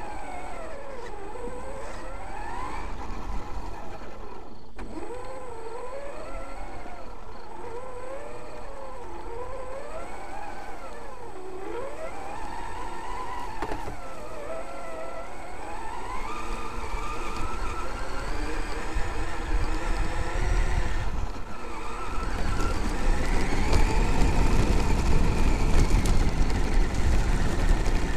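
Traxxas X-Maxx electric RC monster truck's brushless motor and gear drive whining, the pitch rising and falling over and over with the throttle, picked up by a camera mounted on the truck. In the last six seconds or so a louder rumble of tyres running over gravel joins it.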